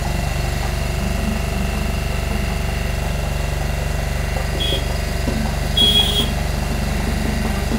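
A small engine running steadily, a low even drone, with two short high-pitched tones a little past the middle.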